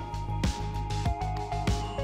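Background music with a steady beat and a melody.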